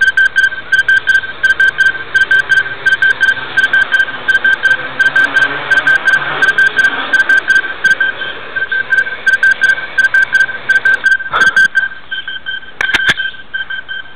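A steady, high-pitched tone pulsing several times a second, with a couple of sharp knocks near the end.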